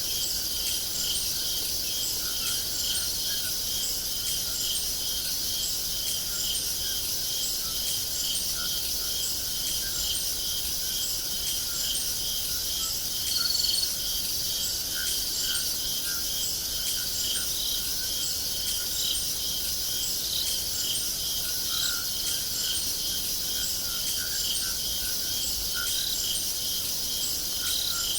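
Crickets chirping in a steady chorus: evenly repeated chirps at about three a second over a continuous high shrill, with fainter lower chirps mixed in. A brief louder high note stands out about halfway through.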